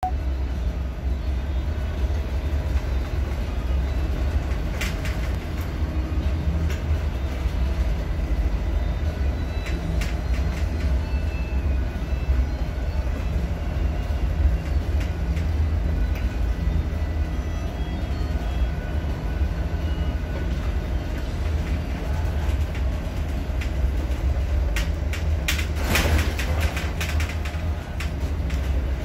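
Steady low rumble of a general cargo ship's engine and hull heard from inside the wheelhouse as she pitches through heavy seas, with a few knocks and rattles and a busier run of them near the end as a sea breaks over the bow.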